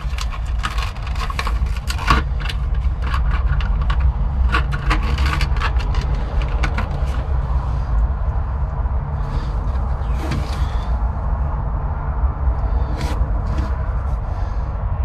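Steady low rumble, with bursts of small clicks and scrapes from handling tools and wiring parts in the first half and a few more near the end.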